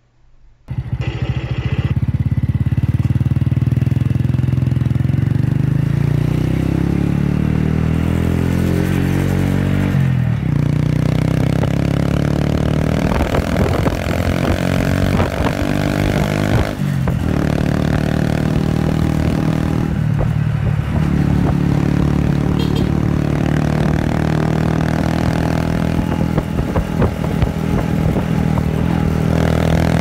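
Honda Wave underbone motorcycle's single-cylinder four-stroke engine running through an Apido Chicken Pipe aftermarket exhaust, heard close to the pipe while riding. The revs climb steadily and drop back briefly three times, as at gear shifts.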